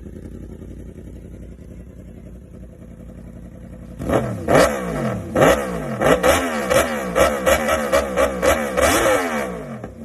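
Superbike with an SC Project aftermarket exhaust idling, then revved in a quick series of sharp throttle blips, about two a second, starting about four seconds in.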